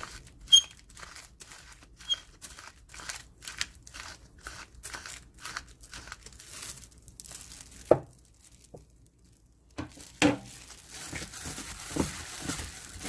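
Wooden pepper mill being twisted, grinding peppercorns with about three short crunches a second. Two knocks come near eight and ten seconds in, and near the end a plastic glove crinkles as a gloved hand mixes the meat.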